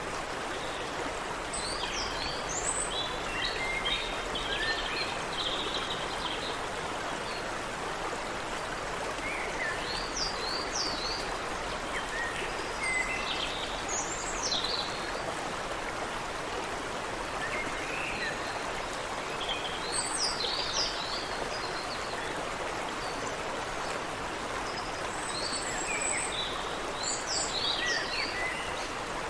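Creek water running steadily, with several songbirds singing short chirping phrases in scattered bouts over it.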